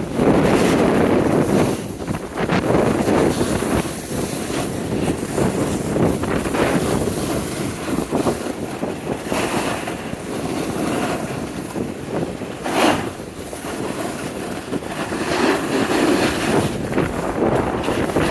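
Wind buffeting the microphone: a loud, unpitched rushing that swells and eases in gusts.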